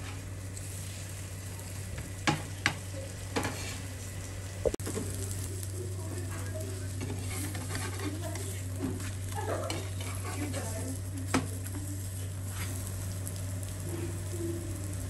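Chapati sandwiches frying in butter on a nonstick tawa: a steady sizzle, with a few sharp clicks of a steel spatula against the pan in the first few seconds and once more later on.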